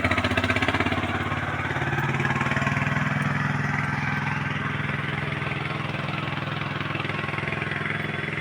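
A small vehicle engine running at a steady speed, with a fast, even firing pulse throughout.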